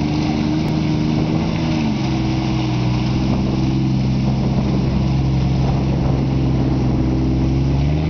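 Lifted Jeep Cherokee XJ's engine running at low, steady revs as it crawls across mud. The note drops a little about two seconds in and climbs again near the end.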